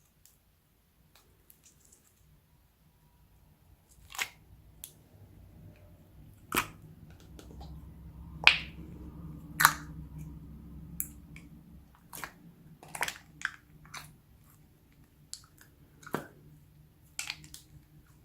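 Slime being mixed and squished by hand: scattered, irregular sticky clicks and pops over a low steady hum.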